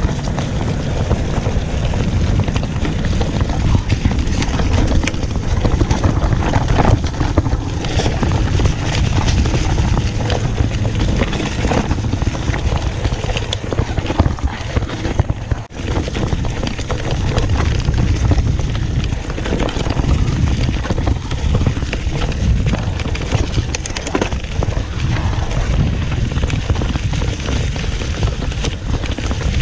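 Mountain bike ridden along a leaf-covered dirt singletrack, heard from a handlebar-mounted camera: a steady rumble of tyres on dirt and leaves and wind on the microphone, with constant small rattles and knocks from the bike over the bumps.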